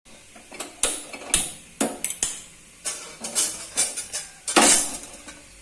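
A series of about ten irregular, sharp knocks and clatters, followed near the end by a longer hissing rush.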